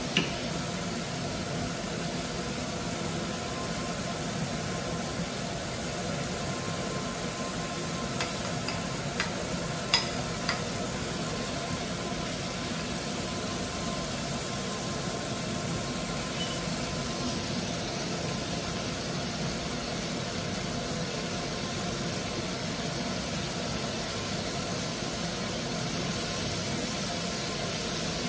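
Food frying in a pan with a steady sizzle, and a few light clicks of a utensil against the pan about eight to ten seconds in.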